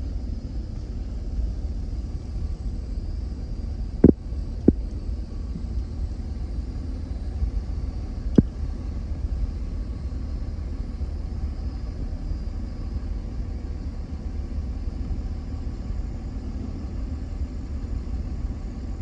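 Steady low rumble of a vehicle, broken by three short sharp knocks about four, four and a half, and eight and a half seconds in.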